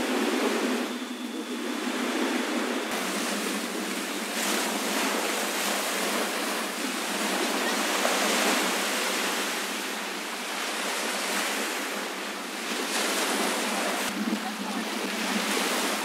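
Small waves washing onto a sandy beach: a steady rush of surf that swells and eases over a few seconds.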